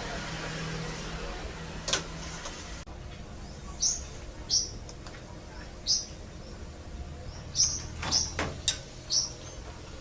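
A bird chirping: short, high chirps repeated roughly every second, with a few sharp clicks among them. A steady hiss in the first three seconds cuts off suddenly.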